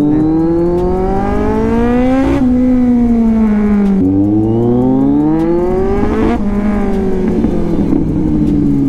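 Inline-four superbike engine revving hard twice: the revs climb for about two seconds and fall away, then climb again from about four seconds in and fall off once more.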